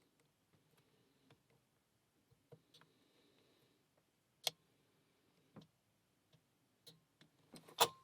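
Lock pick and tension wrench working in a pin-tumbler padlock: sparse faint clicks of pins, one sharper click about halfway, then a louder cluster of clicks near the end as the lock opens.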